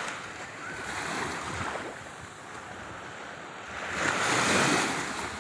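Small sea waves lapping and washing onto the beach at the water's edge, the surf swelling to its loudest about four seconds in.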